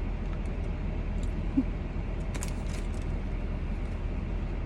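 Steady low hum inside a parked car, with a few faint clicks and rustles of food and wrappers being handled.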